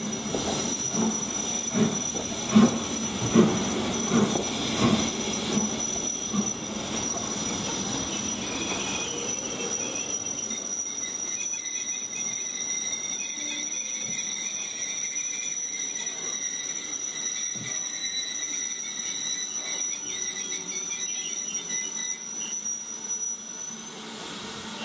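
Squealing from the carriage wheels and brakes of a passenger train behind BR 9F 2-10-0 No.92214 as it slows into the platform and halts. Over the first five seconds there is a string of heavy knocks, about one every 0.7 s. The squeal holds on several steady high notes and cuts off about a second before the end as the train comes to a stand.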